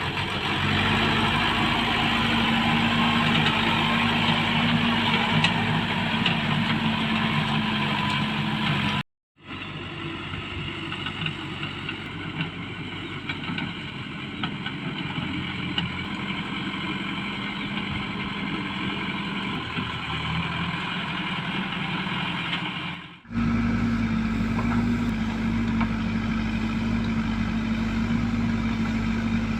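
Diesel engine of a JCB 3DX backhoe loader running at a steady speed. The sound cuts off abruptly about nine seconds in. A quieter, rougher stretch of machine noise follows, then after another abrupt cut near the end the same steady engine hum returns.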